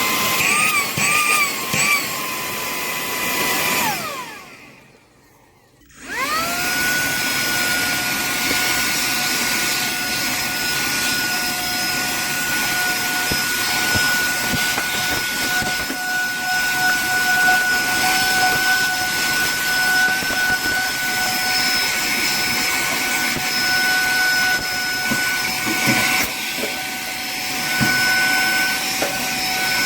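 Cordless handheld mini vacuum's motor running with a steady whine. It winds down and stops about four seconds in, then spins back up a couple of seconds later and runs steadily at a higher pitch.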